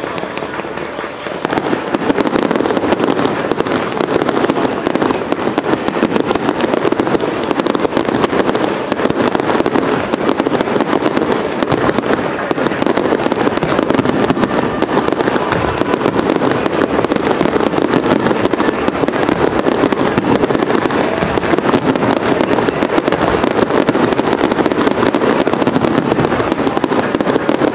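Dense fireworks barrage: aerial shell bursts and crackling go off in rapid succession without a break, growing louder about a second and a half in.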